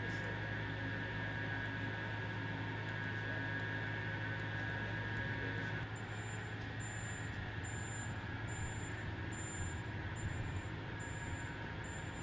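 Steady low machine hum of laboratory equipment, with a steady high whine over it. About halfway through, the whine stops and a short, high beep starts repeating roughly every two-thirds of a second.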